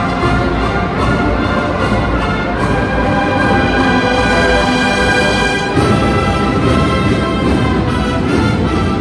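Agrupación musical, a Seville Holy Week band of brass and drums, playing a processional march. A chord is held in the middle for about three seconds before the music moves on.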